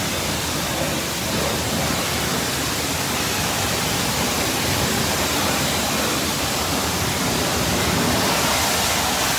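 Self-serve car wash high-pressure wand spraying rinse water over a car's body: a steady, even hiss of spray.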